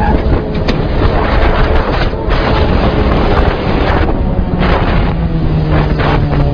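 Heavy wind buffeting on the microphone of a vehicle moving at highway speed, with an engine running underneath; the engine hum comes through more clearly near the end.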